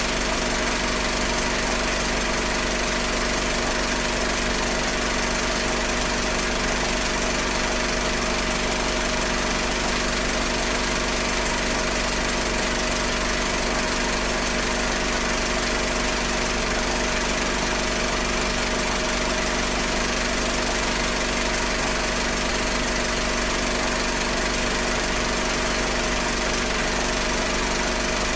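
Cinema film projector running, an even mechanical sound with a constant humming tone that holds steady throughout.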